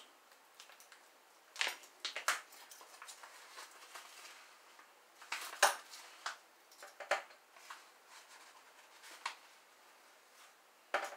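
Metal measuring spoons clinking and tapping, scattered short clicks while pectin enzyme powder is scooped and added to the bucket; the sharpest tap comes about halfway through.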